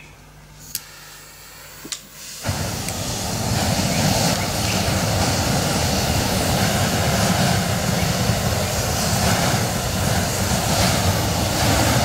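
A few quiet seconds with two faint clicks, then an open atomised-diesel spray flame from a DIY foundry burner nozzle starts suddenly about two and a half seconds in. It burns with a loud, steady noise.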